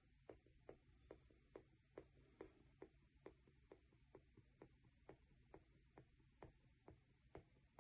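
A dotting tool tapping onto the wet paint on a canvas: faint, light taps at an even pace of about two a second.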